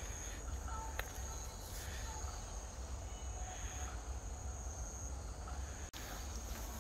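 Crickets trilling in a thin, steady, high tone, with a low, even rumble underneath.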